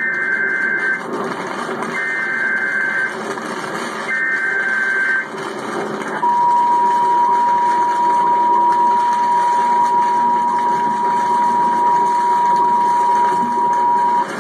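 Emergency alert broadcast for a tornado warning: three short two-tone data bursts of the alert header, about two seconds apart, then a long steady alert tone lasting about eight seconds.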